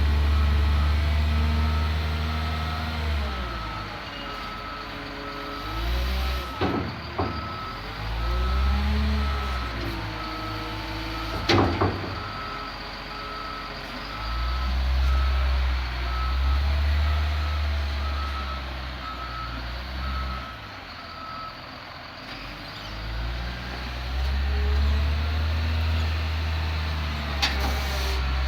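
Caterpillar 950H wheel loader's diesel engine running and revving up and down several times, with its reversing alarm beeping steadily until about three quarters of the way through. A few sharp clanks stand out, the loudest a little under halfway.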